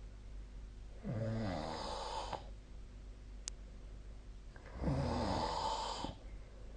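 A sleeping person snoring: two snores about four seconds apart, each lasting about a second and a half, with a pitched tone that drops as it goes. There is a faint click between them.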